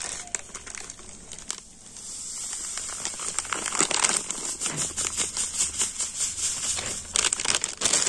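Plastic semolina packet crinkling as it is handled. From about two seconds in, dry semolina pours from the packet into a glass bowl in a steady grainy hiss while the packet keeps rustling.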